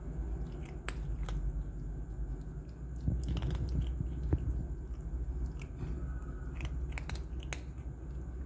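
A calico cat and her kitten chewing dry kibble: irregular crisp crunches and clicks, over a steady low hum.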